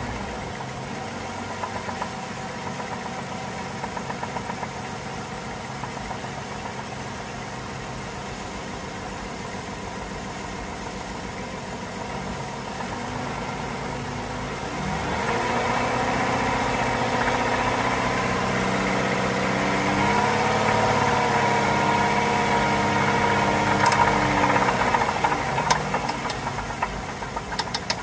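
Chrysler 3.6 Pentastar V6 running with a tapping and ticking noise. It idles for the first half, then is revved up about halfway through, higher again a few seconds later, and drops back near the end.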